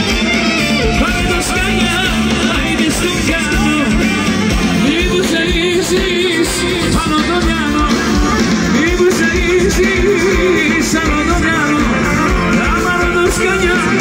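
Loud live Greek folk dance music played over a PA system, with singing over a wavering melody line and a steady band accompaniment.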